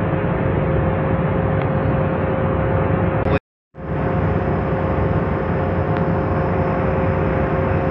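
Ship's engine running steadily with a constant hum, against a rush of wind and water. The sound cuts out for a moment about three and a half seconds in, then the same drone carries on.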